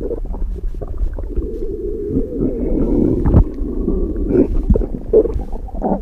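A hungry stomach growling and gurgling: continuous low, churning rumbles with a few short pops and brief squeaky gurgles.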